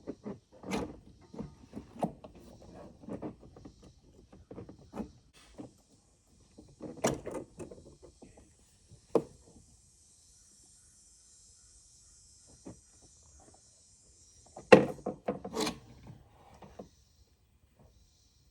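Clicks and knocks of parts and tools being handled on a generator's carburetor. A steady high hiss runs for about nine seconds in the middle, and two loud knocks come near the end.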